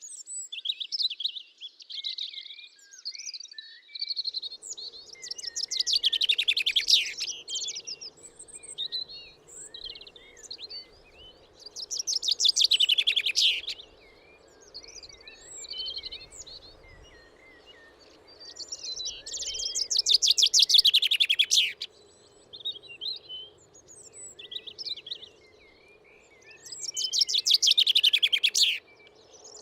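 Songbirds singing: one bird repeats a loud, rapid trilled song four times, about every seven seconds, while other birds chirp softly in between. A faint steady low hum starts about four seconds in.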